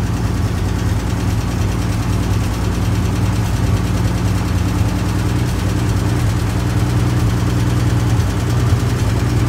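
1946 Dodge Power Wagon's flathead six-cylinder engine idling steadily with a smooth purr, freshly tuned up with new points set by trial and error.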